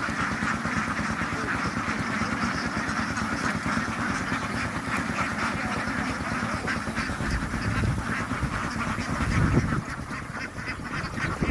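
A flock of ducks quacking continuously, many calls overlapping into a dense chatter. A low rumble comes in past the middle and peaks shortly before the end.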